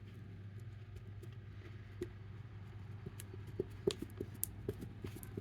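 Sticky slime being squeezed and worked into a plastic bottle, giving scattered soft clicks and small squelches, a few sharper ones about four seconds in, over a steady low hum.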